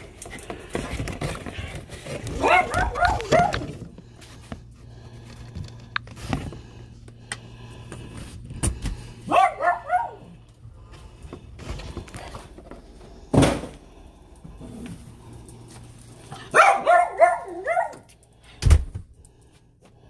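Small dogs barking in short bursts, three times over. There is a thud about thirteen seconds in, a louder thud near the end, and a low steady hum through the middle.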